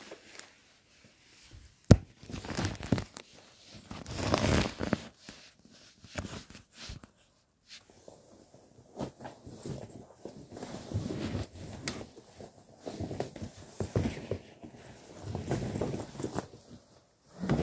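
Close rustling and handling noise, fabric brushing and rubbing near the microphone in irregular bursts, with one sharp click about two seconds in.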